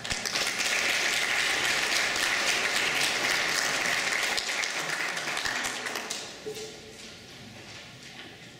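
Audience applauding, strong for about six seconds and then dying away.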